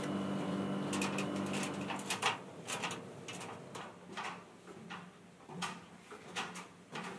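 Footsteps and light metallic knocks on aluminium ladder rungs and stair treads, irregular, about one or two a second. A steady hum underlies the first two seconds.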